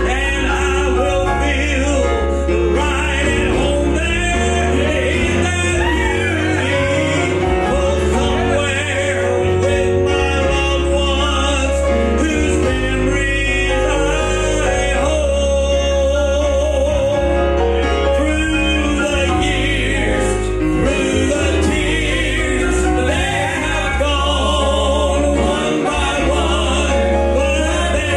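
Gospel singing: a man's voice with vibrato leading over instrumental accompaniment with a steady bass.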